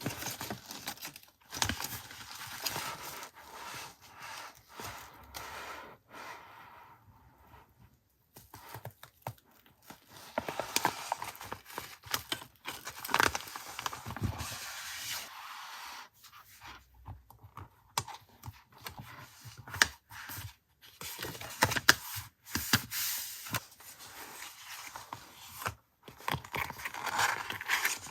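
Paper handled close to the microphone: rustling, scraping and tearing in irregular bursts, with small sharp ticks and brief pauses.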